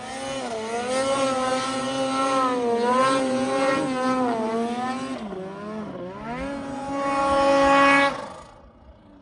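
Snowmobile engine revving hard through deep powder, its pitch rising and falling with the throttle. It sags about six seconds in, climbs again to its loudest, then drops away sharply just after eight seconds.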